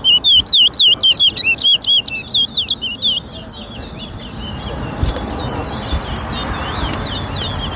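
Caged towa-towa (chestnut-bellied seed finch) singing a rapid run of loud, swooping whistled notes, several a second, each song counted in the contest. After about three seconds the song drops away to fainter overlapping whistles over background noise.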